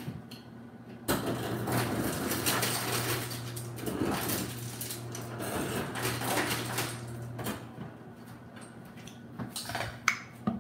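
Refrigerator ice dispenser running for about six seconds: a steady motor hum under the clatter of ice cubes dropping into a metal cocktail shaker. A few sharp knocks follow near the end.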